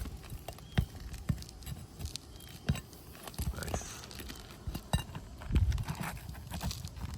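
Irregular knocks, taps and brief scrapes of hand work on a shingle roof while a damaged shingle is being replaced.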